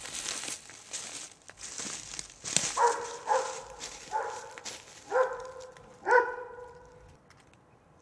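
A dog barking five times, about a second apart, the last bark the loudest. Before the barks, footsteps on the trail.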